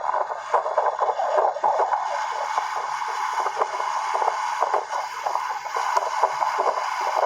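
Motor-driven jon boat under way: water rushing and slapping irregularly against the hull, over a faint steady motor hum.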